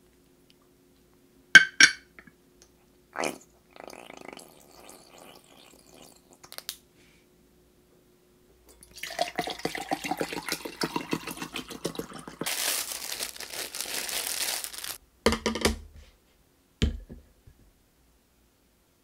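Water poured from a plastic bottle into a drinking glass, its pitch rising as the glass fills, then two dull knocks as things are set down on the table. Before the pour, a few short clicks and soft rustling from hands rolling a leaf wrap.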